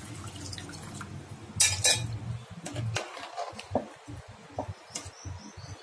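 A metal spoon clinking and scraping against a steel cooking pot while chicken is stirred in a thin gravy of freshly added water. Two sharper clinks come about two seconds in, and lighter knocks follow every second or so.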